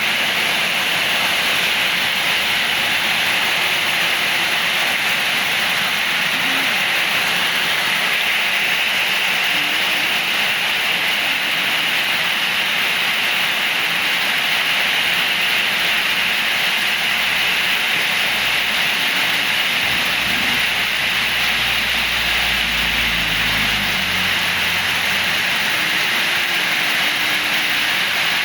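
Heavy rain pouring steadily in strong wind, a dense even hiss throughout. About three quarters of the way through, a low rumble swells and fades.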